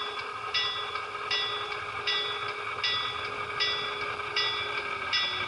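Model freight train running along the layout, heard from on board. A short ringing chime repeats about every three-quarters of a second over a steady running hum, and a held tone slowly drops in pitch near the end.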